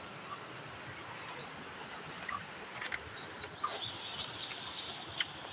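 Birds chirping faintly, a scatter of short, quick rising calls over a steady outdoor hiss.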